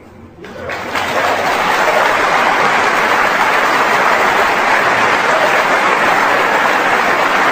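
Large audience applauding, swelling up over the first second and then holding steady and loud.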